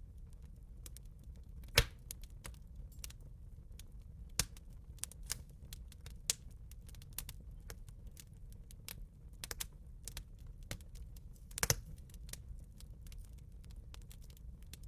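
Campfire crackling: irregular snaps and pops from the burning wood, with two louder pops, about two seconds in and near twelve seconds, over a low steady rumble.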